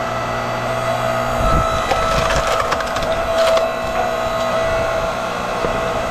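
Electric hydraulic log splitter running with a steady motor hum while its ram forces a log apart: the wood creaks and crackles as it splits, for about two seconds starting a second and a half in.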